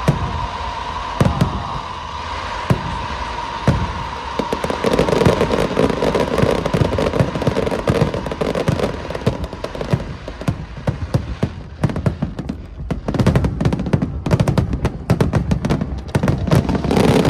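Fireworks going off: a few single loud bangs about a second apart, then from about four seconds in a dense barrage of rapid crackling bursts that thickens near the end.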